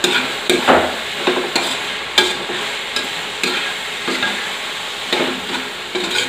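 Ground pork sizzling in a metal wok while a metal slotted spoon stirs it. The spoon scrapes and clinks against the pan over and over, about twice a second.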